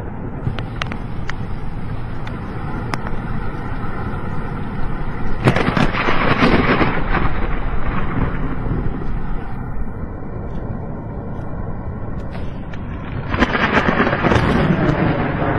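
Thunderstorm: a steady rumble of rain and traffic on a wet road, with two louder rolls of thunder, one about five seconds in and one near the end.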